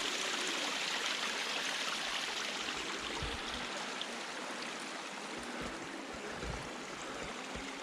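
Water running steadily into a pigeons' bath pan, a continuous rushing hiss that eases a little, with a few dull low bumps partway through.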